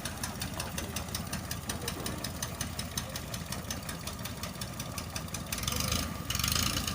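Boat engine running steadily with a rapid, even knocking beat, growing louder near the end.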